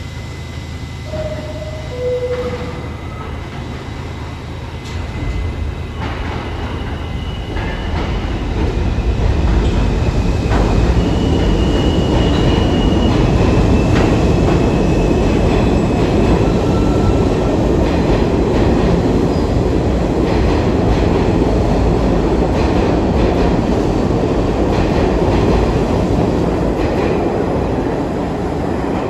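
New York City subway M train pulling into the station, its wheels rumbling on the rails louder and louder as it enters, then a steady loud rumble as the cars roll along the platform, with faint high squeals early on the approach.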